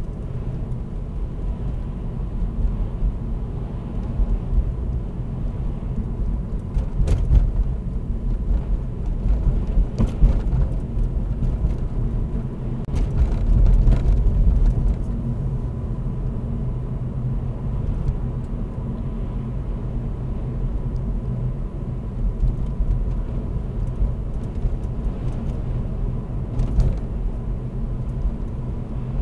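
Inside the cabin of a 2016 Vauxhall Corsa 1.4-litre manual, engine and tyre noise make a steady low rumble as the car drives along at about 20 to 26 mph. The rumble swells briefly about halfway through.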